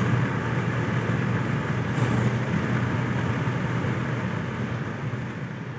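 Steady road and engine rumble heard from inside a car driving along a highway, fading away near the end.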